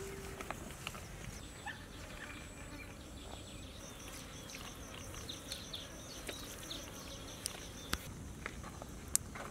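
Faint insect calls: a high-pitched chirp pulsing rapidly and evenly, several times a second, starting about three and a half seconds in, with a few light clicks.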